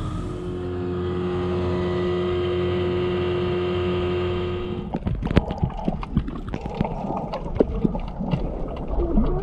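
Dinghy outboard motor running steadily at speed, an even drone with a constant pitch. About five seconds in it cuts off to underwater sound: an irregular scatter of clicks and knocks.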